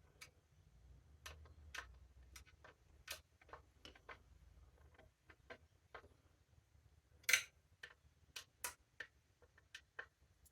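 Irregular light clicks and taps of small hard parts being handled and screwed together while a hanger hook is fitted to a cordless circular saw, with one sharper knock a little past the middle.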